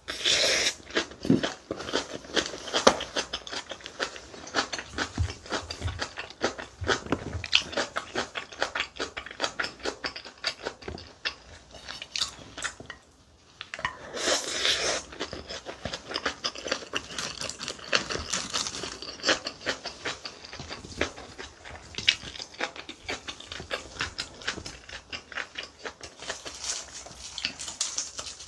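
Close-miked chewing of a mouthful of kimchi bibimbap, a dense run of small wet crunches and smacks. There is a short lull about halfway, then the chewing starts again on a new bite.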